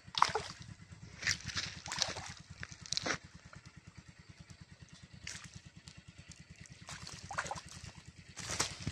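A hooked fish thrashing and splashing at the surface of a pond, in several short, sharp splashes, the last of them as it is lifted from the water near the end. A steady low pulsing rumble runs underneath.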